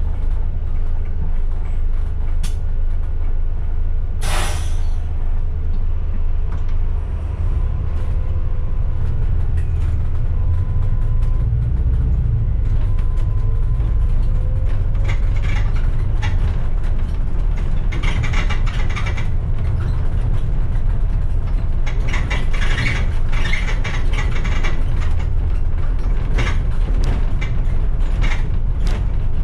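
Engine and road rumble of a moving bus heard from on board, steady and low, with a short hiss about four seconds in.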